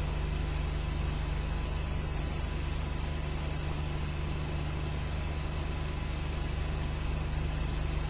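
Steady low hum with an even hiss and no distinct sound events: the soundtrack's background noise.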